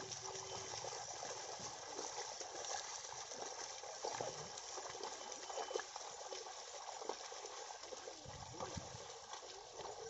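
Muddy water sloshing and splashing as a yoked pair of cattle wade through a flooded rice paddy, dragging a board leveller through the mud.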